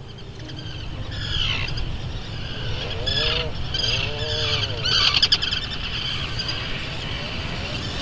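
Birds chirping and calling over a steady low rumble. There are quick falling chirps, several arched calls, and a fast rattling trill about five seconds in, which is the loudest moment.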